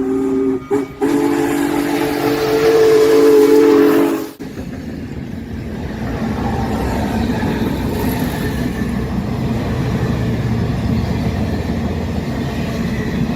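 Locomotive air horn sounding a held chord of several notes, with a short break about a second in, cut off suddenly after about four seconds. Then a train rolls past with a steady low rumble.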